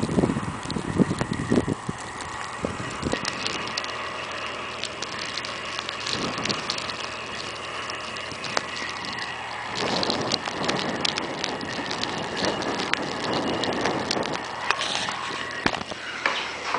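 Blizzard wind gusting against the microphone in low rumbles, over a steady crackling hiss full of sharp ticks.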